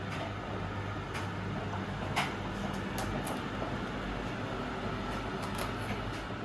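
A steady low hum over background noise, with a few light clicks and taps scattered through it. The sharpest tap comes about two seconds in.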